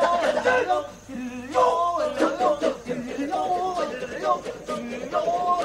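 Balinese kecak chant: a chorus of men chanting a cappella in a wavering, melodic line.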